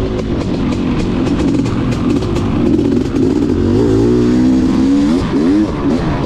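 Dirt bike engine running on a trail, its pitch rising and falling several times as the throttle is worked, with scattered sharp clicks.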